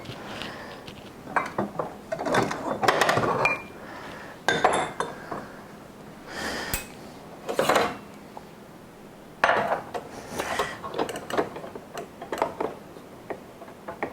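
Scattered clinks, knocks and short rubbing sounds of a drinking glass being set and adjusted on a coffee machine's drip tray.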